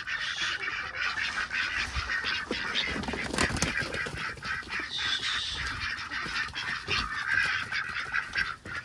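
A flock of domestic ducks quacking and chattering without a break, many raspy calls overlapping.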